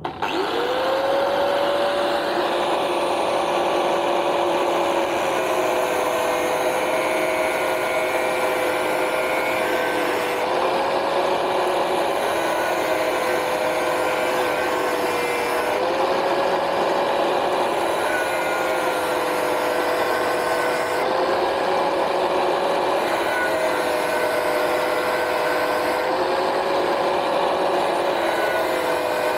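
Angle grinder spinning up right at the start, then cutting through the steel canister of a used Perodua oil filter. A steady high motor whine over harsh metal-grinding noise, its pitch dipping a little and recovering every few seconds.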